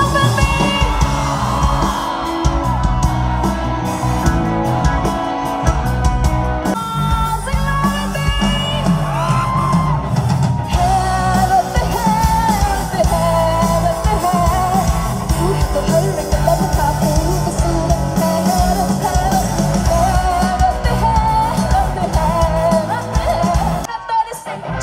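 Live band performing a song through a PA system: a woman singing lead over electric bass, guitars, keyboard and drum kit, with a steady beat.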